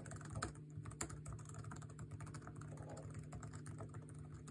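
Typing on a 2008 MacBook Pro's silver laptop keyboard: a quick, uneven run of light key clicks.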